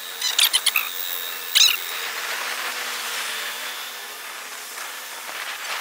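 Street traffic noise with a steady engine hum from buses and traffic. A quick run of sharp clicks comes about half a second in, and one more follows a second later.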